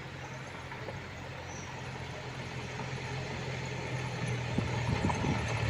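Jeep engine running with a steady low hum while driving a rough off-road track, growing louder toward the end, with a few knocks and rattles from the body in the last second or so.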